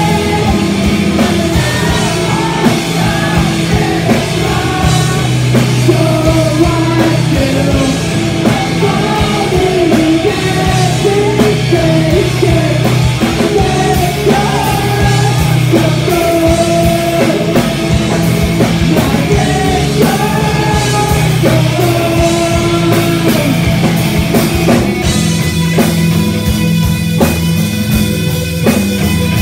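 A math rock band playing live: electric guitar, bass guitar and drum kit with a sung vocal. Near the end the singing drops out, leaving the guitars and drums.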